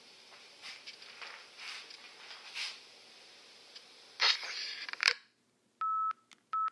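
Hiss and faint scuffs from an old microcassette recording, with louder rustling, like the recorder being handled, about four seconds in. The recording then cuts to dead silence, broken near the end by two short steady electronic beeps, each with a click before it.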